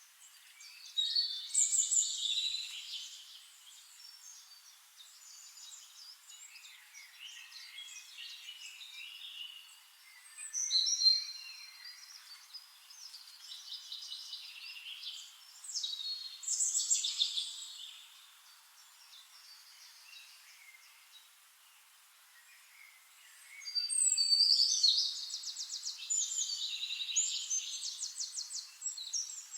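Several songbirds singing and calling in a forest dawn chorus. Short bursts of chirps and whistled phrases come every few seconds, ending in a long run of fast, repeated trilled notes.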